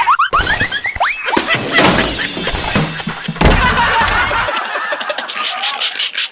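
Cartoon sound effects over music: a string of quick rising tones in the first second or so, then several sharp crashes as the characters run.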